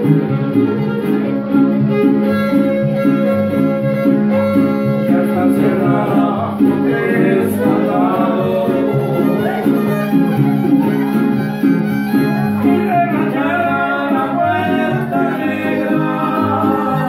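Violin playing a melody over a steady, rhythmic low accompaniment, a lively Latin American-style tune.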